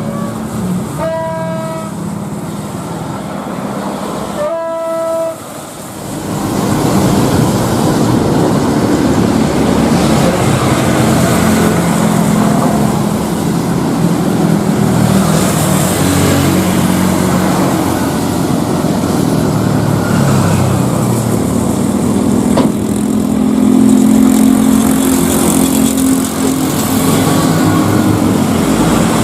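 Two short horn toots, then a loud jet airliner engine roar that swells up about six seconds in and keeps going, with a wavering low drone under the noise.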